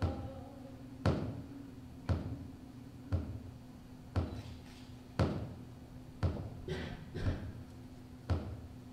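Dancers' body percussion: sharp hand or body hits, about one a second in an even beat, with a couple of extra hits near the end.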